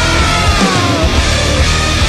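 Heavy metal music with distorted guitar and a driving beat; a high guitar note bends downward about half a second in.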